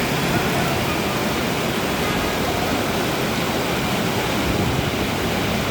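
Rain pouring steadily, an even hiss with no breaks.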